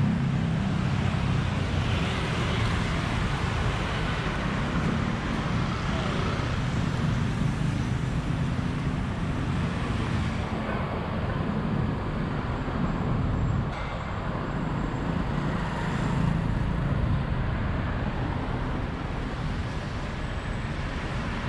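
Steady road traffic noise, with vehicle engines and tyres making a continuous low rumble.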